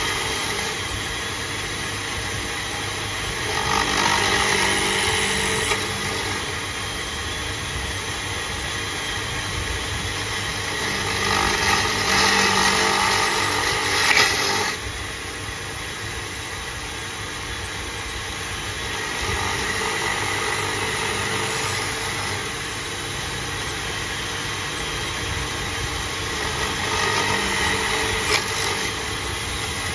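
Drill press motor running steadily while its bit cuts into a wooden spoon blank to hollow out the bowl. The cutting grows louder three times for a few seconds as the blank is pushed against the bit.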